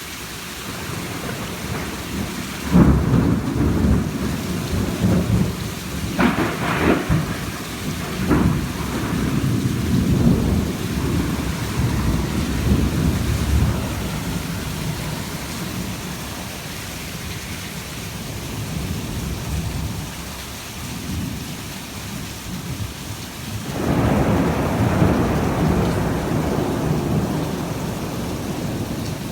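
Heavy rain falling steadily during a thunderstorm. A loud thunderclap breaks about three seconds in, with sharper cracks a few seconds later, and rumbles on for about ten seconds. A second long rumble of thunder starts near the end.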